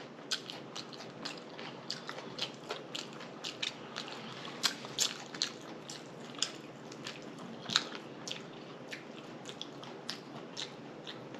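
Close-miked chewing and lip smacking: a steady run of many small, sharp, wet mouth clicks and smacks as someone eats.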